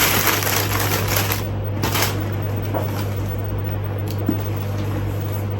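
Packaging being torn open and rustled by hand, loudest in the first second and a half with another crinkle about two seconds in, then quieter handling. A steady low hum runs underneath.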